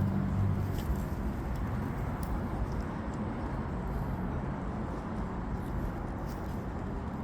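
A passing vehicle's low hum fading out in the first second, then steady background traffic noise with a few faint clicks.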